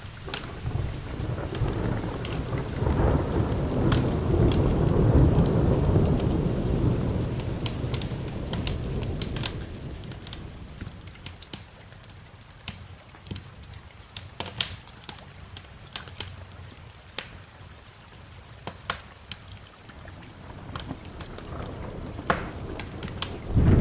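A long roll of thunder swells over the first few seconds and fades out by about ten seconds in, over steady rain, while a wood fire crackles and pops throughout. Another rumble of thunder begins right at the end.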